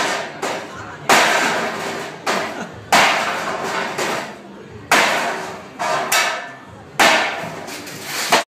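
Heavy blows smashing up boards and wooden panels: four loud crashes about two seconds apart, each trailing off with clatter, with lighter knocks in between. The sound cuts off suddenly just before the end.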